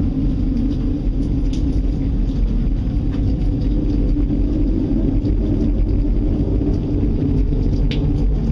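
Loud, steady low rumble with a continuous droning hum, from an unidentified source that the listeners fear is an approaching tornado.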